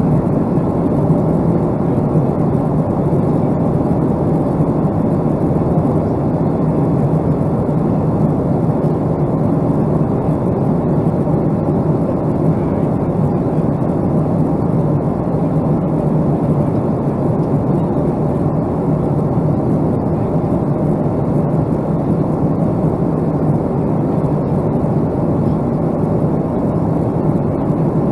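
Steady jet noise from a Boeing 757-200 airliner, an even rush that holds level with no change in pitch.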